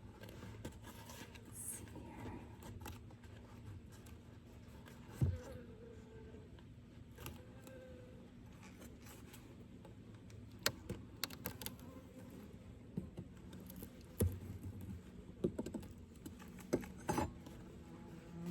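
Faint clicks, light scrapes and occasional knocks of wooden hive frames being handled during a beehive inspection, over a low hum of honeybees. The knocks come more often in the second half.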